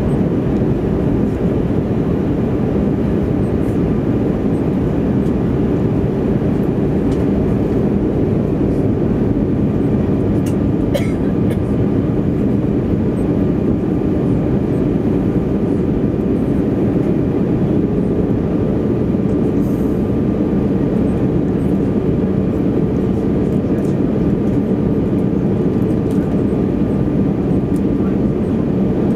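Steady cabin roar of an Airbus A320 on approach, heard inside the cabin by the wing: engine and airflow noise with a low, even hum.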